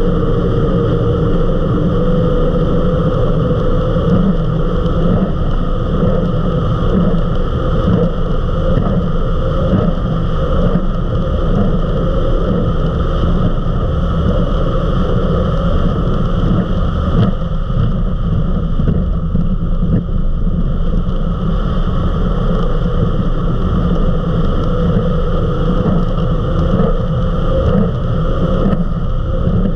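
Eliminator 31 XO Speedster powerboat running at high speed, around 65 to 80 mph: a loud, steady drone of its engines mixed with the rush of wind and water.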